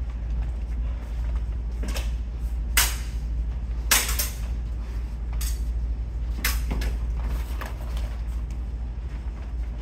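Steel sparring swords clashing in a fencing bout: a handful of sharp metallic clacks, a few with a short ring, about two, three, four and six to seven and a half seconds in, over a steady low hum.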